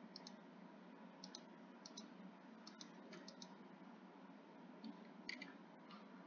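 Faint, irregular clicking at a computer, each click a quick double tick, over a steady low hiss.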